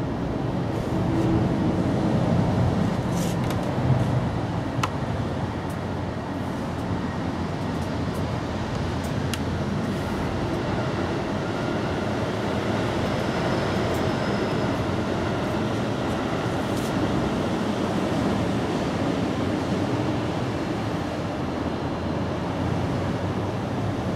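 Steady low background rumble of outdoor ambience, a little louder in the first few seconds, with a few faint clicks.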